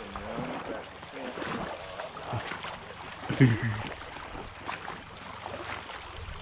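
Shallow mountain creek running over a gravel riffle, a steady rushing hiss, with a short burst of a person's voice about three and a half seconds in.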